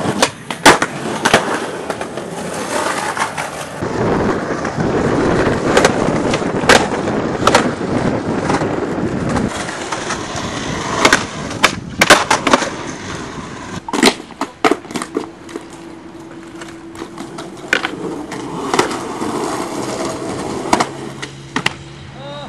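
Skateboard wheels rolling over rough concrete, with repeated sharp cracks of tails popping, boards landing and slapping the ground as tricks are tried.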